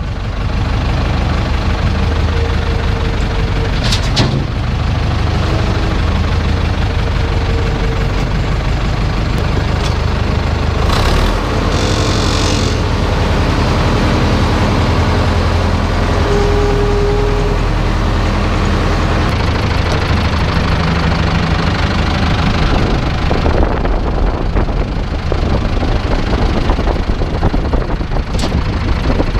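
Tractor diesel engine running steadily while the three-point hitch's hydraulic lift cylinder cycles a heavy shredder. A brief hiss comes about eleven seconds in, and a couple of sharp clicks come near the start and near the end.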